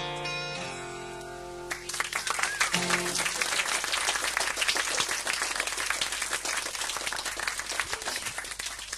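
The final guitar chord of a song rings out and dies away. Then, about two seconds in, a live audience breaks into applause that keeps going.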